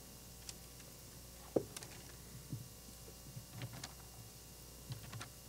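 Faint scattered rustles and soft knocks over a low room hum, as Bibles are opened and their pages turned, with one sharper knock about a second and a half in.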